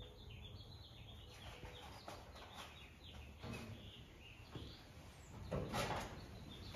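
Faint chirping of small birds over quiet shop room tone, with a brief rustle of handling near the end.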